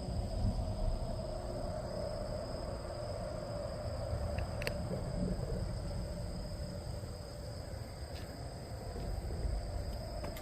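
Outdoor ambience at the waterside: a low, uneven rumble under a steady hum and a steady high-pitched drone, with a couple of short clicks about halfway through.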